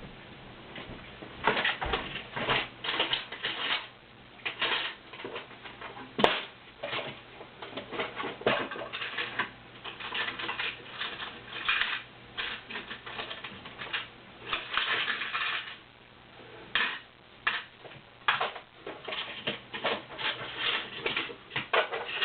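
Small metal parts clicking and rattling in irregular bursts as the Wonder Wheel attachment's connecting rods are handled and pushed into place on a Necchi BU Mira sewing machine, with one sharp click about six seconds in.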